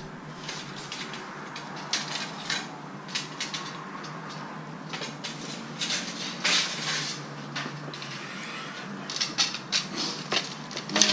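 Light metal clattering and clinking with rustling, in irregular clusters and loudest near the end: aluminium rod rests being rummaged out from under a shop counter and handled.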